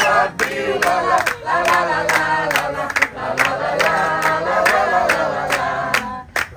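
Music with a steady, fast beat and a group of voices singing along.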